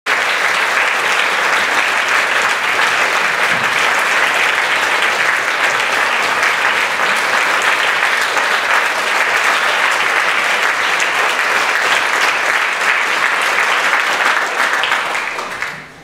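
Audience applauding, steady and loud, dying away near the end.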